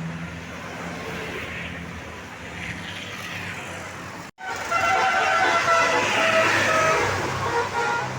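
Low vehicle engine rumble, then after a sudden cut about halfway through, a tourist bus's Basuri telolet horn plays a loud melody of several tones, stepping from note to note.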